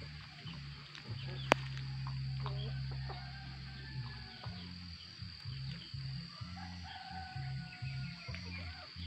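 Chickens clucking and calling in short bursts, over background music with a slow, low bass line. A single sharp click sounds about one and a half seconds in.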